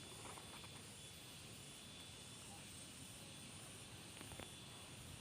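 Faint steady outdoor background hiss, close to silence, with a few light clicks near the start and near the end.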